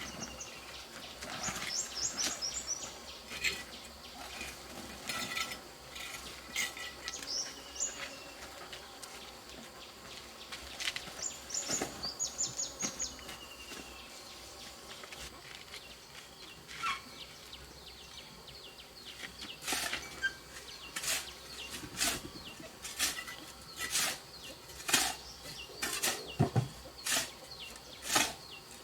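Birds chirping in short quick runs of high calls. About two-thirds of the way in, a series of sharp knocks begins, roughly one a second, and keeps going.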